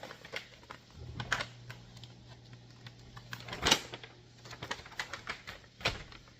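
Irregular light clicks and taps of small parts and packaging being handled, with louder knocks about three and a half and six seconds in.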